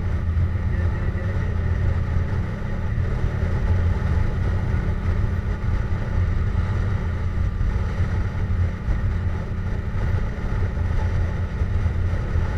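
Yamaha MT-07's parallel-twin engine running at a steady cruise through a Jeskap GP aftermarket exhaust, with wind rushing over the rider's microphone. The engine note holds level with no revving.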